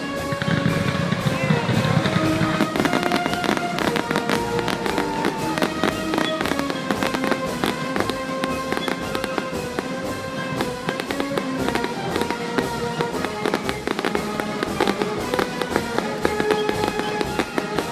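Fireworks going off in rapid, near-continuous bangs and crackles over music, with a heavier low boom in the first couple of seconds.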